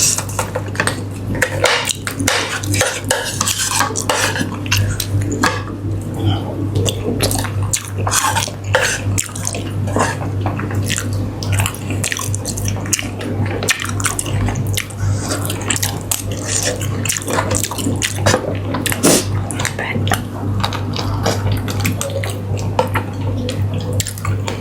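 Spoon clinking and scraping against a plate or bowl, many irregular small clicks as food is scooped up while eating, over a steady low hum.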